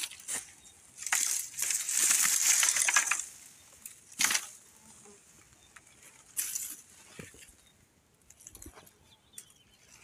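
Dry grass, twigs and leaves crunching and rustling underfoot as someone steps through hillside brush. The crunching is loudest in a long stretch from about one to three seconds in, followed by a few separate crackles.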